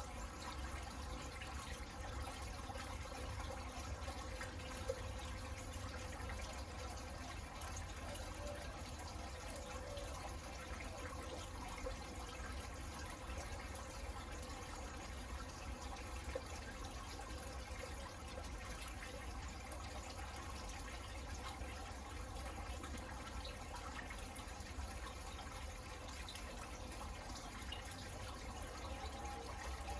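Rain falling and dripping: a steady even hiss with a few louder single drops.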